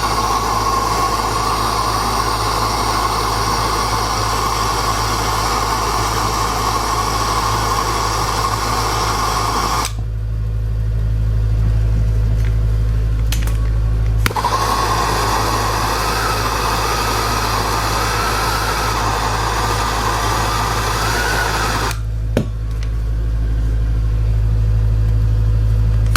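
Handheld gas soldering torch burning with a steady hissing flame over a low hum, as used to sweat copper pipe joints; the hiss drops away twice for a few seconds, leaving the hum.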